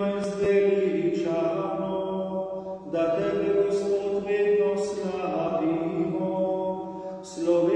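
Slow liturgical chant: sustained notes over a steady low drone, sung in phrases with short breaks between them.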